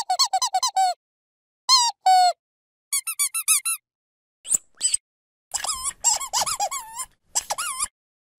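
Dog squeaky toy being squeezed over and over in irregular bursts: a quick run of short squeaks, a pair, another fast run, two sharp squeaks, then a longer, denser stretch of rapid squeaking near the end.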